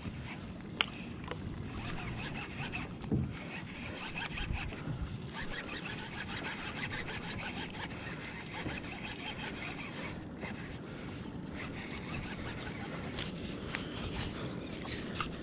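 Steady wind and water noise around a fishing kayak on the ocean, with a few faint clicks and knocks.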